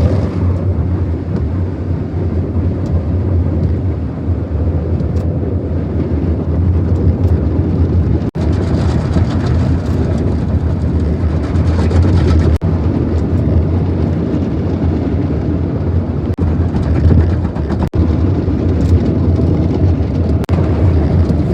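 Automatic car wash tunnel equipment running, heard as a steady, loud rush over a deep hum, with a few brief dips.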